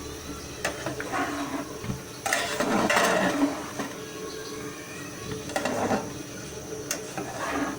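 A spoon stirring rice into the potato masala in a cooking pot, with a few separate scrapes and knocks against the pot; the longest and loudest comes about two to three seconds in.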